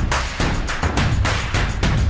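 Music with a steady, driving drum beat and heavy bass.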